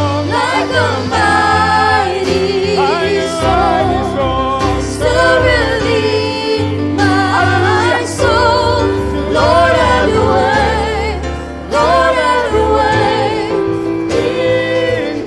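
Live gospel worship music: male and female singers holding long notes with vibrato over a band with bass guitar and keyboard.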